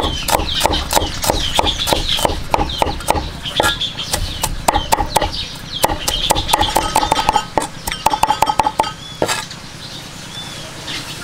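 Cleaver chopping garlic on a wooden chopping board: steady knocks about four a second, turning quicker and more uneven as the garlic is minced, then stopping about nine seconds in. Bird calls sound faintly in the background.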